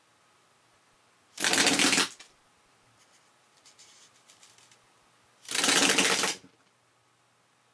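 Wooden pull-automatic rubber band machine gun firing two rapid bursts of clattering clicks, each well under a second long and about four seconds apart, one bank of twelve bands per burst. A few faint clicks fall between the bursts.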